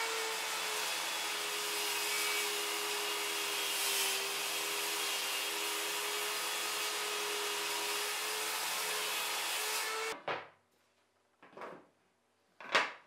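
Table saw running while a hardwood board is ripped along the fence with a wooden push stick; the blade's steady tone sags slightly under load about four seconds in. The saw sound stops abruptly about ten seconds in, followed by three short wooden knocks as push sticks are handled on the saw table, the last one the loudest.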